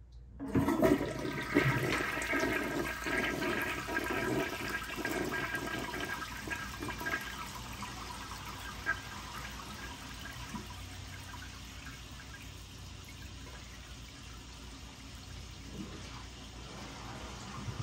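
A 1973 Kohler Placid siphon-jet toilet flushing and pulling a small washcloth down its trapway. The rush of water starts suddenly about half a second in, is loudest for the first five seconds or so, then settles into a quieter, steady run of water in the bowl.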